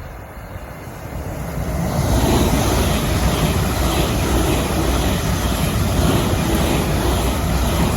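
Class 450 Desiro electric multiple unit train passing at speed: a loud rush of wheels and air that swells over the first two seconds, then holds steady.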